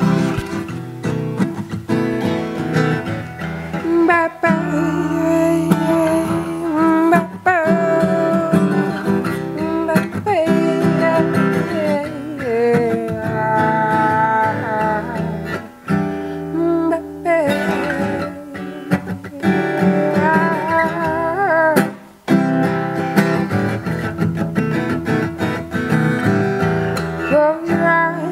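Acoustic guitar playing an improvised soul tune, with a woman's voice singing over it from a few seconds in.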